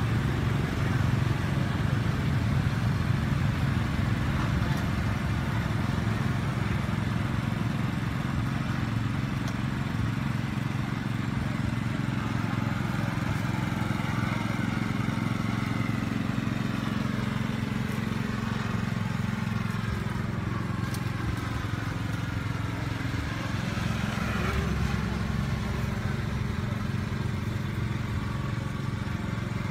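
Steady, low engine drone that runs without a break, with no single event standing out.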